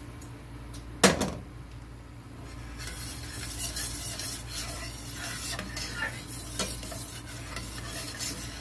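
A metal pot set down with a clang on a gas-stove grate about a second in, then a utensil stirring and scraping in a stainless skillet of thickened milk gravy in repeated short strokes.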